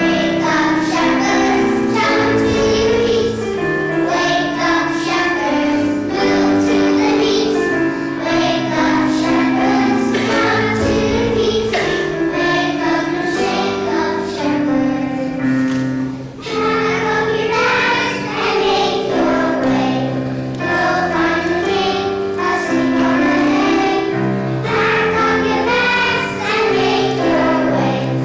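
A choir of children singing a song with musical accompaniment, with a short break about halfway through.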